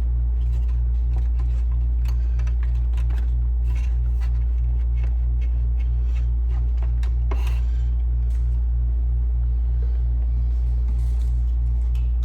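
A steady low hum with a throb pulsing about four times a second, under scattered small clicks and rattles of parts being handled.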